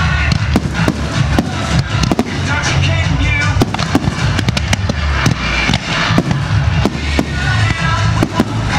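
Fireworks display: aerial shells bursting in sharp bangs, about two or three a second at uneven intervals, with music playing throughout.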